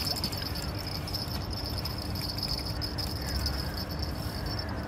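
Crickets chirring steadily in the grass, a high-pitched even buzz, over a low rumble, with a few faint short chirps on top.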